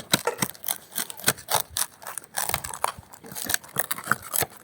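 Crisp toasted tlayuda, a large Oaxacan tortilla, being cut in half, the tortilla crunching and cracking in a run of quick, irregular sharp cracks.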